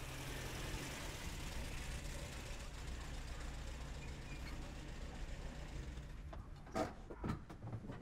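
A car engine idling steadily and quietly, with a few short knocks near the end.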